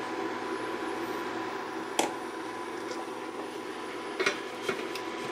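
Tongs clacking against a frying pan about two seconds in, then a few metal-and-glass clinks as a lid with a fan handle is set down on the pan near the end. A steady fan hum with a faint steady tone runs underneath.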